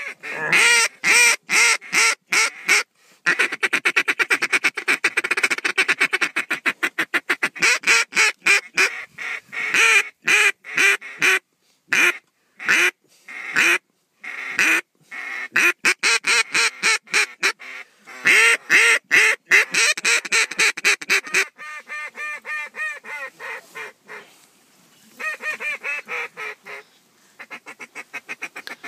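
Mallard duck call blown close by in long, fast strings of quacks, working a flock of mallards circling overhead. About two-thirds of the way through the calling turns softer, with one louder run near the end.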